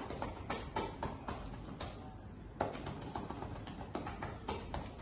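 Chest percussion: a cupped hand clapping on a patient's back in a quick, irregular series of slaps with a short pause in the middle. This is done to loosen phlegm in the lungs.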